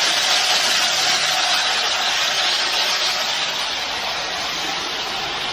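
Wet ready-mix concrete sliding down a concrete mixer truck's steel chute and spilling into the form, a steady rushing noise.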